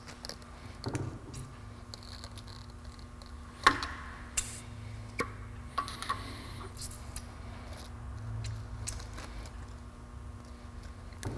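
Scattered small metallic clicks and taps from a brake master cylinder clamped in a vise as it is bench bled, its piston pushed in by hand; the sharpest click comes about four seconds in. A faint steady hum lies under it.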